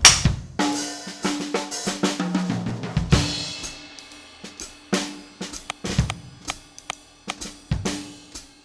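Background music with a drum kit: snare, hi-hat and cymbal hits over a repeating bass note, opening with a loud crash and growing quieter towards the end.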